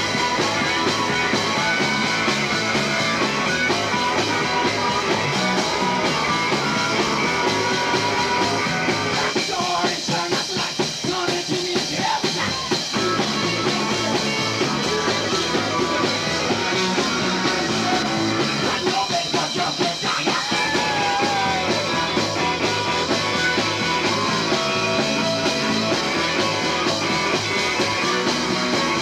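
Live rock band playing, with electric guitar and a lead singer at the microphone.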